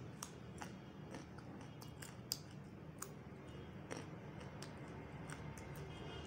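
Puffed prawn chips being bitten and chewed: a run of small, irregular, crisp crunching clicks.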